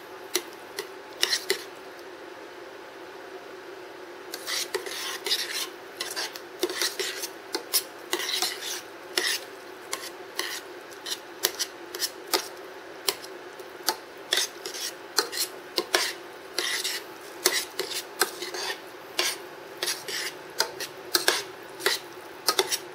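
Metal spoon scraping and clinking against the sides and bottom of a stainless steel saucepan while stirring thick cauliflower mash, in irregular strokes of one or two a second, sparser in the first few seconds.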